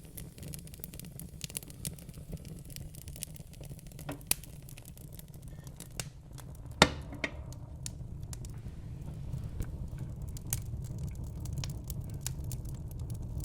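Wood fire burning in a fireplace: a steady low rumble with scattered crackles and snaps, and one sharp, loud pop about halfway through.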